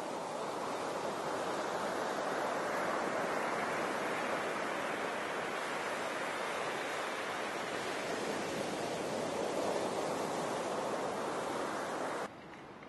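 Surf breaking on a sandy beach: a steady wash of waves that swells a little and eases. It cuts off suddenly near the end.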